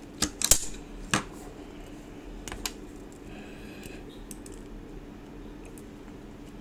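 An automatic self-adjusting wire stripper squeezed and released: a few sharp clicks and snaps within the first second or so as its jaws grip and strip the wire's insulation, then two fainter clicks about two and a half seconds in.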